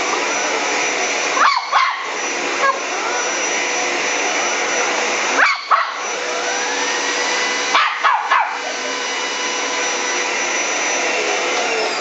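Vacuum cleaner running steadily with its motor whine, while a dog barks at it a few times, about a second and a half in, around the middle and again a little later.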